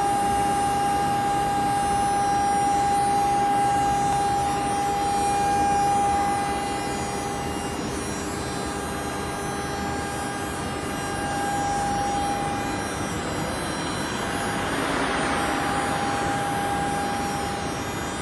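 Intermediate-frequency induction furnace power supply running: a steady whining tone with fainter higher tones over a constant hum and hiss. The hiss swells briefly about fifteen seconds in.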